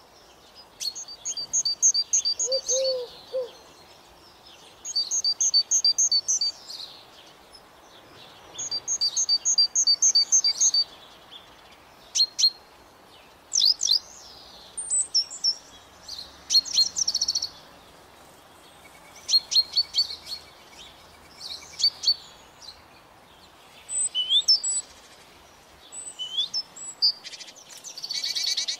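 Songbirds singing: a short, rapidly trilled phrase repeated every few seconds, then assorted chirps and quick calls.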